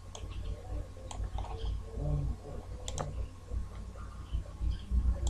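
A few sharp computer-mouse clicks at irregular intervals, over a low steady hum.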